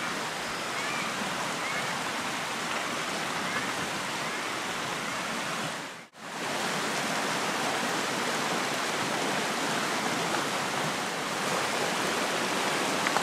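Shallow rocky river rushing steadily over riffles. The sound drops out for a moment about halfway through, then resumes.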